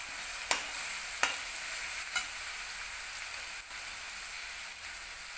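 Chopped onion and spices frying in hot oil in a steel kadhai: a steady high sizzle, with a perforated steel spoon clinking sharply against the pan three times in the first two and a half seconds as it stirs.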